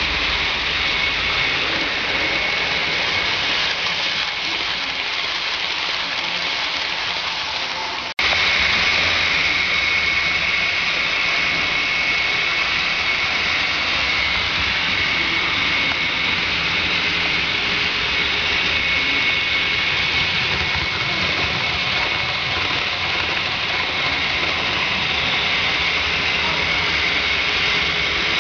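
Model trains running on a layout: a steady whirring rumble of motors and wheels on the rails, with a thin high whine. The sound breaks off for an instant about eight seconds in and resumes louder.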